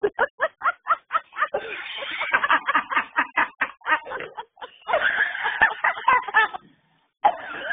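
A woman's voice laughing hard in rapid, breathy, cackling bursts, several a second, with a brief pause near the end.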